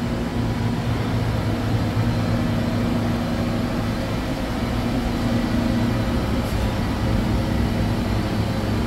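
Steady low machine hum from a powered-up Gildemeister Twin 65 CNC turn-mill center standing idle, with no cutting.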